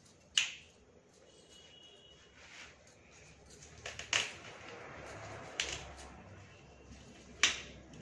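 Fresh leafy greens (saag) being cleaned by hand: about five crisp snaps as stems are broken off, with leaves rustling in between.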